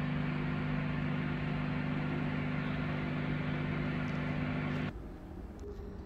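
Microwave oven running: a steady hum that cuts off suddenly about five seconds in, as the oven is stopped partway through its cycle.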